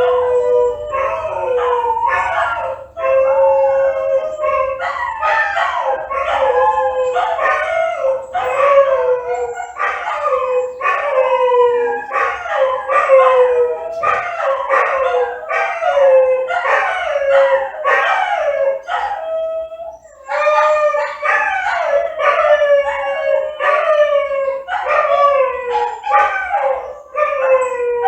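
Dogs howling and yelping together: a dense run of overlapping, mostly falling howls with short breaks between calls, with a brief lull about twenty seconds in.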